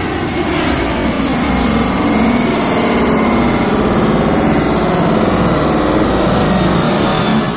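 Jet engines of an IndiGo Airbus A320-family airliner passing low overhead on landing approach, gear down: loud, steady jet noise with a slowly sweeping, shifting tone as it goes over.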